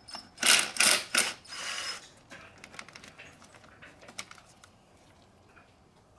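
Snap-on cordless wrench unscrewing a bolt at the engine's intake: three short loud bursts of the tool about half a second to a second and a quarter in, then a brief steadier run, followed by faint clicks.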